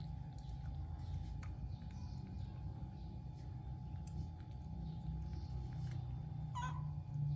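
A baby macaque nibbling fruit with faint wet mouth smacking, over a steady low hum. One short squeak comes near the end.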